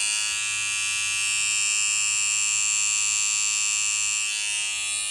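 Babyliss Pro FX Rose Gold hair trimmer running with a steady, high-pitched buzz, super noisy. The owner puts the noise down to a worn plastic cam follower (blade-glide insert) in the blade head.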